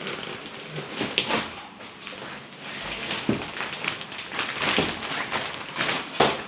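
Rustling and soft knocks from handling an unboxed foam folding bed mattress, with a sharper knock near the end.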